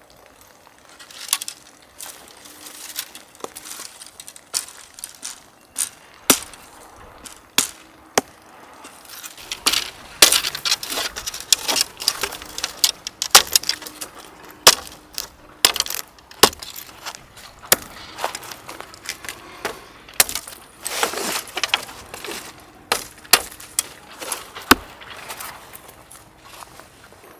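A long run of irregular clicks, clinks and knocks from hard objects being handled and set down, busiest in the middle stretch.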